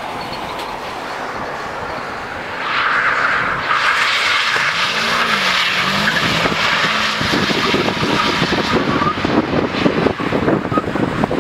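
Car tyres skidding on a wet road and an engine revving as a small sedan drifts sideways. The skid noise comes in about two and a half seconds in and carries on loud.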